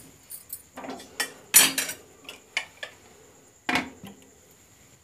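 Metal clinks and knocks of an aluminium pressure cooker and its lid being handled as the lid is closed on the cooker, about ten separate strikes with the loudest cluster about one and a half seconds in and a last knock near four seconds.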